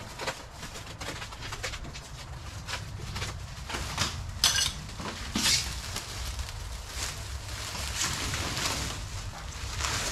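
Clear plastic stretch wrap crackling and rustling in irregular bursts as it is torn and pulled off a large machine by hand.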